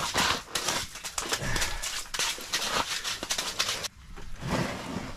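Handling noise: a run of rustles, clicks and knocks as fishing gear and a plastic tackle box are handled, breaking off suddenly about four seconds in.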